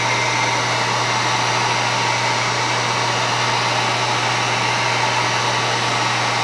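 Handheld electric heat gun running steadily, blowing hot air onto a wet resin pour: an even rush of air over a constant low motor hum.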